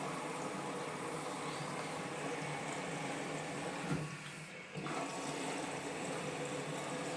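Gorenje WaveActive washing machine running with a steady rush of water. A click about four seconds in is followed by a brief lull before the sound resumes.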